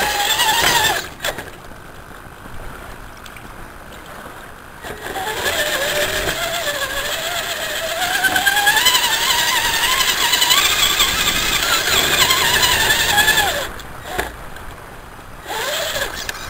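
A scale RC crawler truck's electric motor and gearbox whining as it drives through mud, the pitch wandering up and down with the throttle. The whine drops away about a second in, comes back strongly around five seconds, and eases off again briefly near the end.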